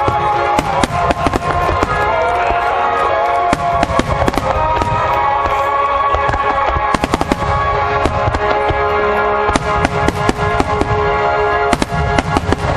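Fireworks display with dense, rapid bursts and crackles, over music with long held notes.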